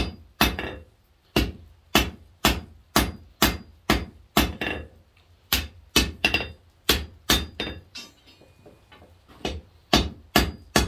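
Hand hammer striking red-hot half-inch square mild steel on an anvil, drawing out the pointed end of a fire poker. The sharp, ringing blows come about two a second and pause briefly about eight seconds in before resuming.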